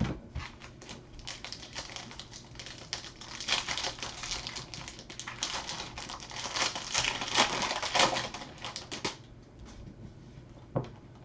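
Trading cards and their foil pack wrappers being handled, with a rapid, irregular crackling and clicking, dense for most of the time, then a single knock near the end.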